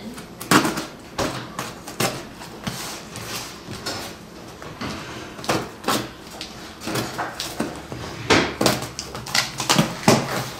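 Scissors cutting through packing tape on a cardboard shipping box, with irregular scrapes, snips and knocks as the box is held and handled.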